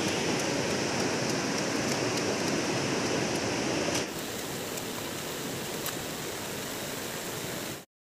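Steady rush of flowing water, with faint light clicks of a knife slicing a banana flower. The rushing drops a little about four seconds in and cuts off suddenly near the end.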